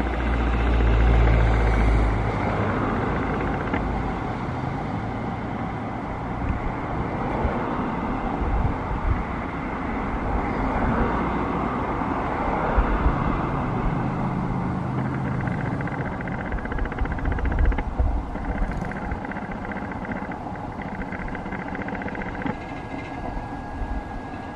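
Jet engine noise of a departing Airbus A321neo with Pratt & Whitney geared turbofans climbing away: a steady, distant rushing rumble. Low buffeting on the microphone comes and goes.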